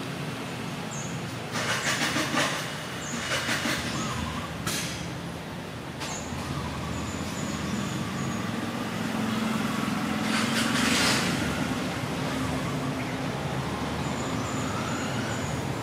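Road traffic noise: a motor vehicle's engine hum swells and peaks about eleven seconds in over a steady traffic background, with a couple of short noisy bursts a few seconds in.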